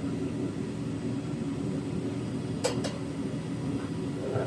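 Foundry furnace burner running with a steady roar while bronze melts in the crucible. Two sharp clinks come close together a little past halfway through.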